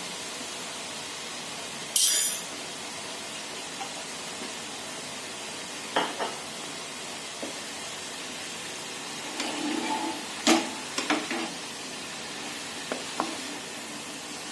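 Rice stir-frying in a pan: a steady sizzle, a short louder hiss about two seconds in, and a spatula clinking and scraping against the pan now and then, mostly in the second half.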